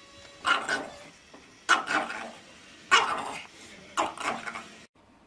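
A dog barking four times, about a second apart; the sound cuts off suddenly near the end.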